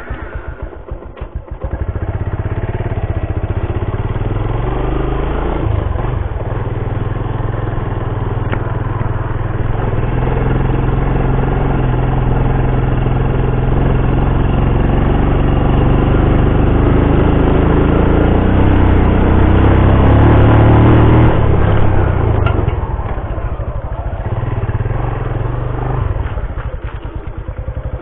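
Small motorcycle engine running while being ridden along a dirt track. It picks up after the first couple of seconds and rises in pitch as it gathers speed. About three-quarters of the way through it drops back as the bike slows.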